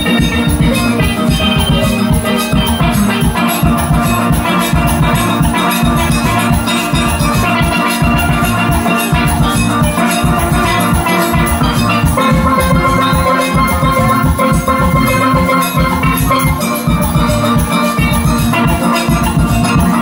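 Steelband playing: steelpans carrying the melody and chords over a steady, driving drum and percussion beat.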